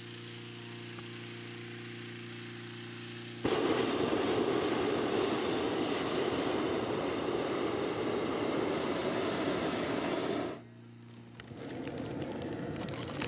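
A small gasoline engine drives a hot air balloon's inflator fan, running steadily. About three and a half seconds in, the propane burner fires with a loud, steady rushing blast that heats the air in the envelope. It lasts about seven seconds and cuts off suddenly.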